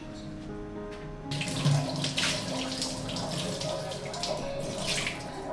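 Kitchen faucet turned on, its water stream running into the sink over a plate being rinsed. It starts about a second in and stops just before the end.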